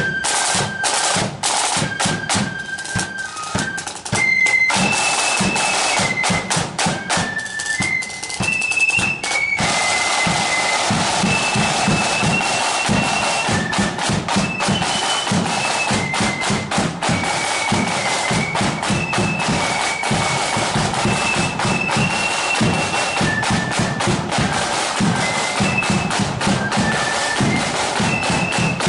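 A marching flute band playing a tune: flutes carry a high melody over rapid snare-drum rolls and strikes and a bass drum beat. The band sounds louder and fuller about four seconds in.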